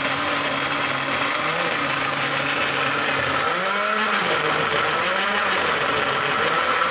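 National electric blender running, grinding tomatoes and onions into a paste. The motor's hum dips in pitch briefly about halfway through, then steadies.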